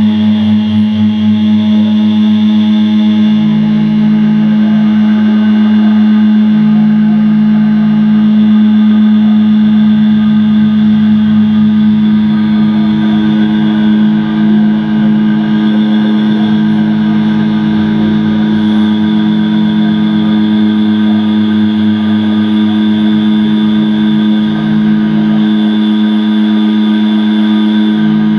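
Loud, distorted drone music: one steady low tone held throughout under layers of effected sustained tones, with deeper tones cutting in and out every few seconds.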